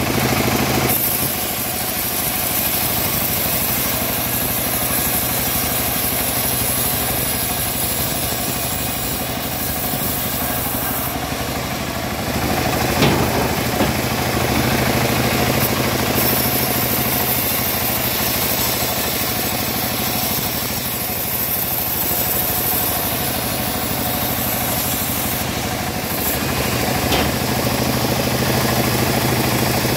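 Homemade bandsaw mill sawing lengthwise through a teak log. A steady machine drone runs under the high hiss of the blade in the wood, which swells and eases as the log is fed. A sharp knock comes about halfway through, and another near the end.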